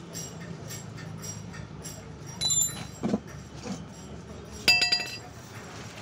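Metal tools and bicycle parts clinking against each other: two sharp metallic clinks with a brief ringing tail, about two seconds apart, the second louder. A dull knock falls between them.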